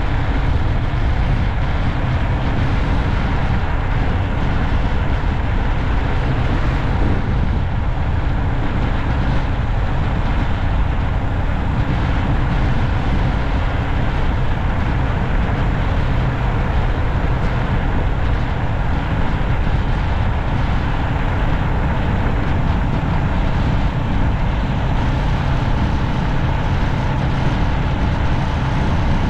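Steady low road rumble from a vehicle driving along a city street, with a faint steady tone entering near the end.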